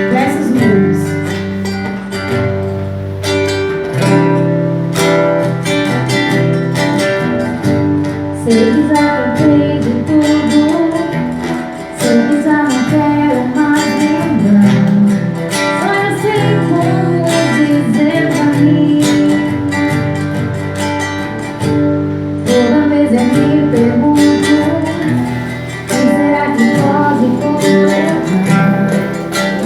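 A group playing live: strummed acoustic guitar with singing over a steady beat.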